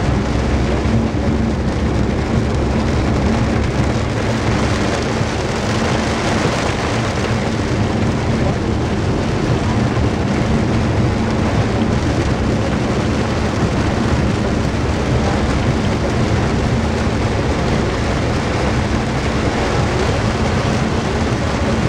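Heavy rain pelting a car's windshield and roof, heard from inside the moving car as a steady dense hiss, with the car's tyre and engine noise running underneath.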